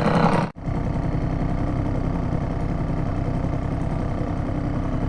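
Seagull two-stroke outboard motor running steadily at low canal speed, an even drone after a momentary gap about half a second in.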